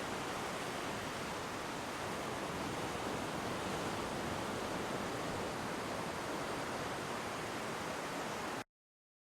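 Steady, even hiss with no tone or rhythm, cutting off abruptly near the end.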